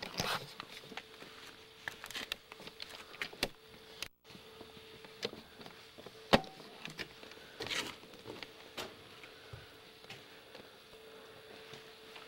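Footsteps and scuffs on rough stone steps, with irregular clicks and knocks from handling the camcorder; the sharpest knock comes about six seconds in. A faint steady hum runs underneath, and the sound drops out briefly a little after four seconds.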